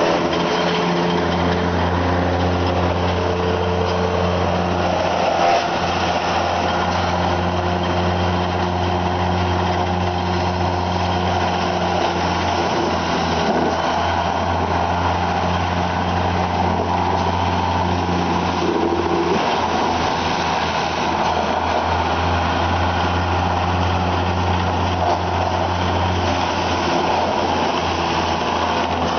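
Wood chipper running steadily, its engine making a constant low drone with a noisy wash over it and no pauses.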